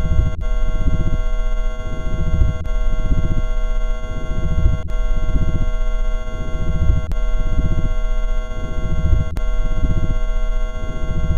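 Loud, harsh synthesizer sound effect: held electronic tones over a pulsing, distorted low rumble, looping with a click about every two seconds.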